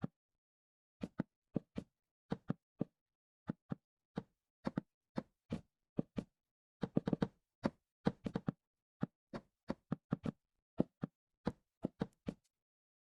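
Knuckles or a hard object knocking on wood in an irregular pattern: single knocks and quick little runs with silence between, a fast flurry of knocks about seven seconds in.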